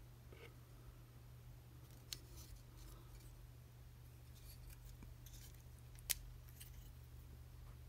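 Faint clicks and light rubbing from a plastic action figure's joints and parts as it is posed by hand. There is a small click about two seconds in and a sharper click about six seconds in, over a low steady hum.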